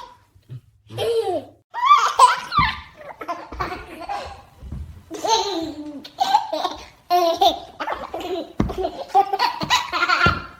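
A baby laughing hard in repeated high-pitched bouts, breaking off and starting again.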